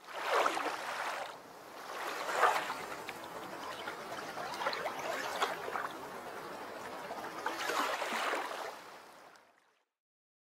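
Sound design for an animated logo: a rushing noise that swells and ebbs several times, loudest about two and a half seconds in, and fades away near the end.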